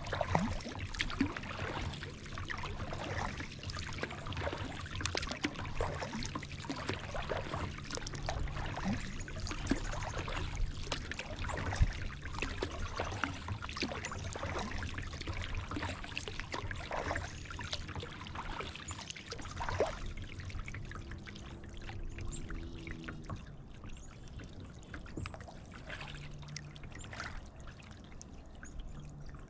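Kayak paddle strokes: the blades dipping into the water with splashes and water trickling and dripping off them, the splashes sparser and quieter over the last several seconds.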